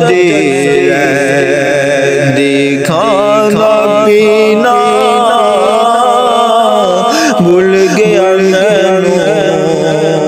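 A male voice singing a Punjabi Sufi kalam in long, ornamented held notes with wavering pitch, over a steady musical drone.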